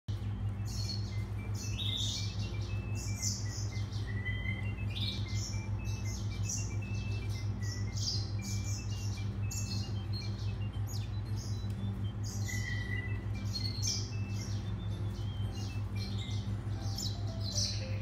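Caged grey singing finch and canary chirping and singing in short high trills and twitters throughout, over a steady low hum.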